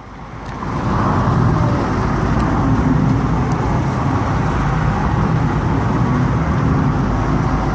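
Steady road noise heard from inside a moving car, with tyres and engine droning. It grows louder over the first second and then holds level.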